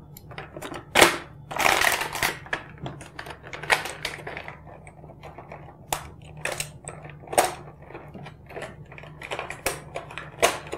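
Plastic toy packaging and a plastic toy handled and unwrapped by hand: irregular crackles and clicks, the loudest about a second in and a cluster around two seconds in.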